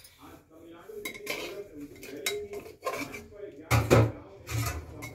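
A serving spatula scraping and clinking against a steel plate and the rim of a pressure cooker as curry is dished out, with louder knocks a little after the middle.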